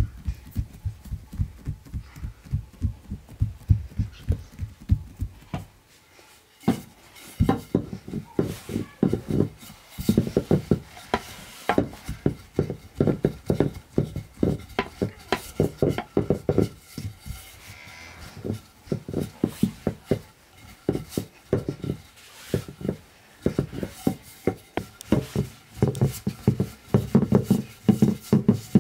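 Dough being pressed by hand and rolled out with a wooden rolling pin on a metal tray: a fast run of soft rhythmic thumps, about four a second, with a brief pause about six seconds in.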